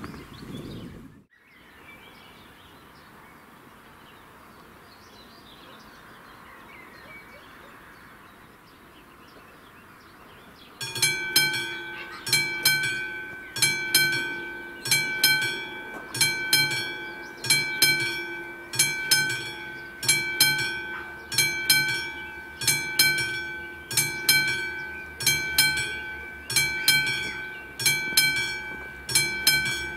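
Quiet outdoor background, then about eleven seconds in a level-crossing warning bell, a classic mechanical bell of the kind used with AŽD 71 warning lights, starts ringing. It strikes about once a second, each stroke ringing out before the next: the crossing has been activated for an approaching train.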